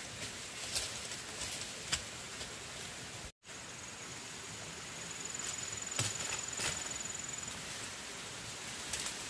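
Outdoor ambience: a steady hiss with a few sharp clicks or snaps, and a thin high steady tone for about four seconds in the middle.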